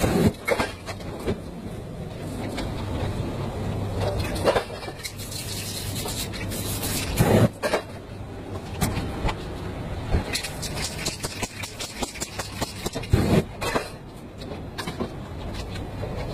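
Aerosol spray paint cans hissing in short bursts, over a steady low background hum.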